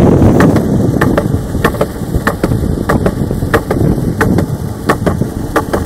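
Wind noise rumbling on the microphone, strongest in the first second or so and easing after, with a run of sharp clicks over it, about two to three a second.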